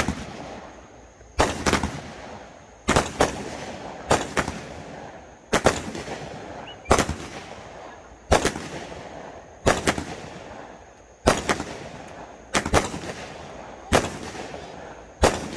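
Multi-shot consumer fireworks cake firing shot after shot, about ten shots in all. The sharp bangs come in close pairs, a pair about every second and a half, each followed by a fading rumble.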